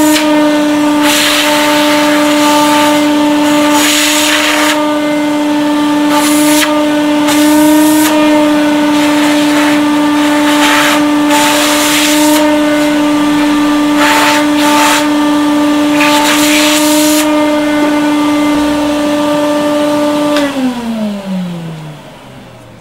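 Household vacuum cleaner running with a steady motor whine, its suction hissing louder in repeated bursts of a second or so as the hose nozzle is worked against a compact camera's lens. About two seconds before the end the motor is switched off and winds down, its whine falling in pitch.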